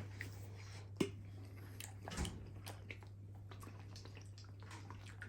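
Faint chewing with a few soft clicks, about one and two seconds in, over a steady low hum.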